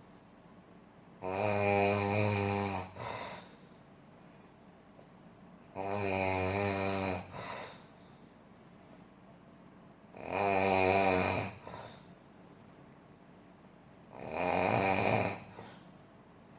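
A sleeping person snoring heavily: four long, buzzing, low-pitched snores about four seconds apart, each followed by a short, softer breath out.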